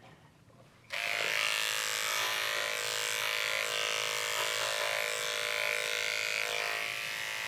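Electric dog-grooming clipper running steadily as it shaves a small dog's coat, a constant even hum that starts abruptly about a second in.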